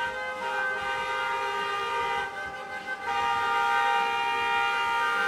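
Several car horns honking together in long held blasts, their pitches overlapping, easing off briefly about two seconds in and coming back fully about a second later.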